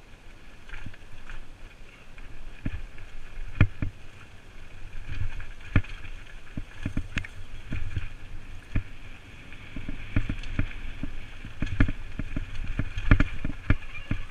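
Mountain bike riding fast down a dry dirt trail covered in fallen leaves, heard from a helmet-mounted camera: tyres rolling and crunching over leaves and loose ground under a low rumble, with frequent sharp knocks and rattles as the bike hits bumps.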